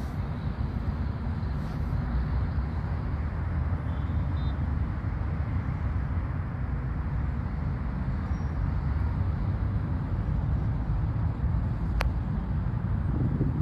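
Steady low outdoor rumble, with a single sharp click about twelve seconds in.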